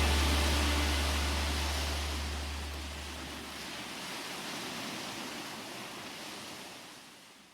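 The song's last chord ringing out and dying away over the first few seconds, under a steady hiss of sea surf that slowly fades out towards the end.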